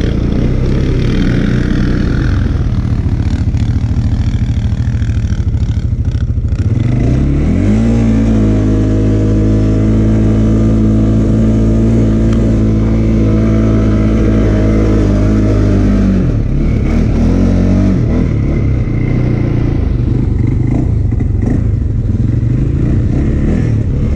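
CFMoto CForce 600 Touring ATV's single-cylinder engine, heard from the machine itself. It runs unevenly at first, then rises in pitch about seven seconds in and holds steady high revs under load for about eight seconds while climbing a steep loose hill, then drops back.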